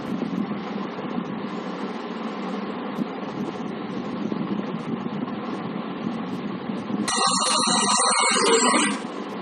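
A film's opening soundtrack played over the room's speakers: a low, steady rumbling ambience that swells louder for about two seconds near the end.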